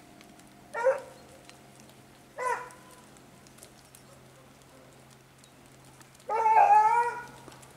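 Rabbit-hunting hound giving voice while working the rabbit's scent: two short yelps, then one longer, wavering bay near the end.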